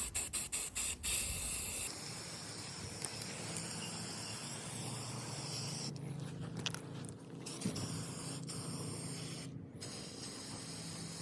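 Aerosol can of spray primer being shaken, its mixing ball rattling at about five strokes a second. About two seconds in, the can starts spraying with a steady hiss, broken by a couple of short pauses.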